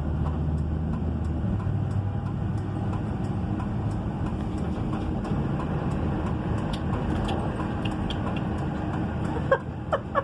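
Steady road and engine noise inside a moving car's cabin: a low, even rumble.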